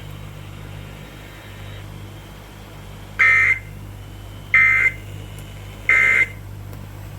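Emergency Alert System end-of-message data bursts playing over a radio: three short, harsh buzzing bursts about 1.3 seconds apart, signalling that the alert has ended. A steady low hum runs underneath.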